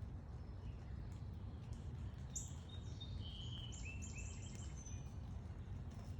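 Backyard birds giving short, high chirps and call notes, a quick run of them from about two and a half to five seconds in, over a steady low rumble of outdoor background noise.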